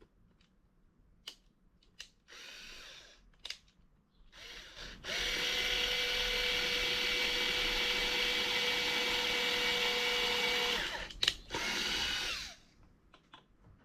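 Handheld power drill running in spurts: a short burst, then a long steady run of about six seconds that stops suddenly, a click, and one more short burst that winds down.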